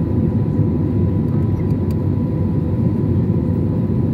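Airbus A321-200 cabin noise on short final just before touchdown: a steady, loud roar of engines and airflow heard from inside the cabin, with a thin steady whine over it.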